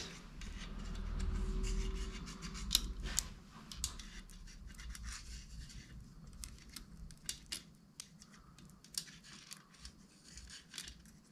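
Scratching and irregular small metallic clicks of a magnet probe worked around inside a Simson moped engine case, fishing for metal fragments from a broken gearbox, with a low rumble of handling in the first couple of seconds.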